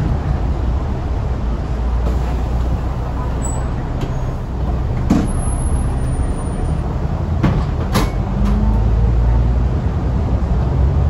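Alexander Dennis Enviro500 MK2 Euro 3 double-decker bus engine, heard from inside the lower deck, running at a stop. There are several sharp clacks about halfway through, and the engine grows louder near the end as the bus pulls away.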